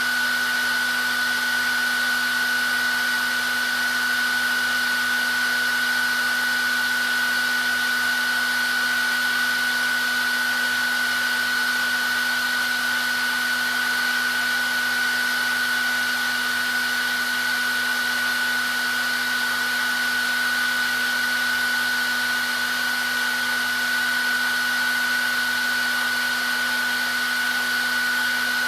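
Hair dryer running steadily: an even rush of blown air with a constant high whine from the motor and fan.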